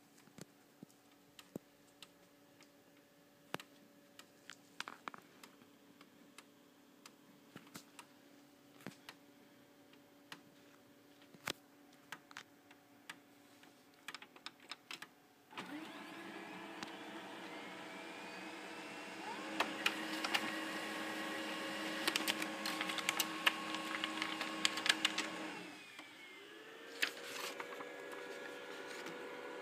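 Brother HL-2040 laser printer printing its print-settings page after its Go button is pressed. For about half the time only a faint steady hum and a few light clicks; then its motors start with a whirr rising in pitch, get louder with rapid clicking and clattering as the sheet feeds through, stop for a moment and spin up again near the end.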